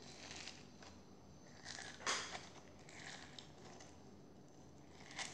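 Crunchy slime being squeezed and kneaded by hand, giving faint crackling and popping, loudest about two seconds in and again near the end.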